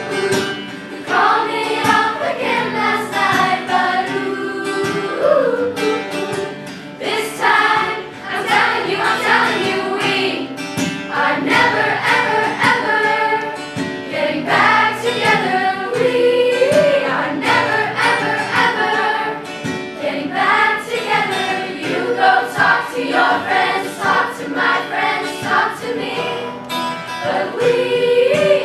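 A choir singing a song together, with instrumental accompaniment.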